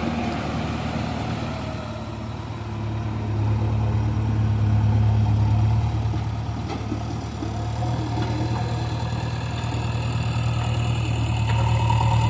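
A heavy vehicle's diesel engine idling steadily with a low hum, its level swelling a little a few seconds in and again near the end.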